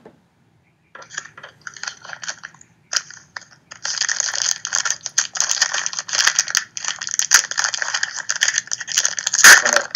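Foil trading-card pack wrapper crinkling and crackling as it is torn open by hand, after a few light rustles and clicks. The crinkling sets in densely about four seconds in and is loudest near the end.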